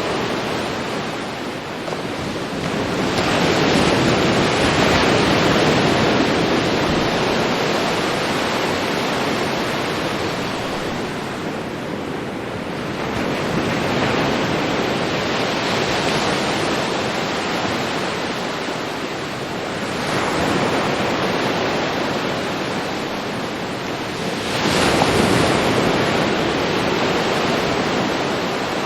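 Ocean surf washing onto a beach: a steady roar of water that swells as four waves come in, several seconds apart.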